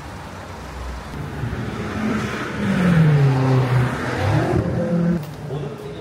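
A car driving past: engine and tyre noise swell to a peak about three seconds in, the engine note falling in pitch as it goes by, then the sound ends abruptly a little after five seconds in.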